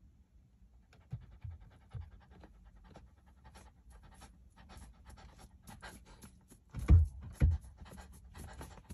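Mini cockapoo panting in quick, short breaths, about two to three a second, starting about a second in. Two dull thumps come close together near the end.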